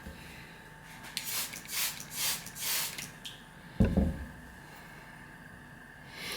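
Wet Suehiro SKG-38 whetstone, 1000-grit side down, rubbed with light pressure in about five quick strokes across a lapping plate while being flattened: a gritty rasping hiss on each stroke. A short low knock follows near the four-second mark.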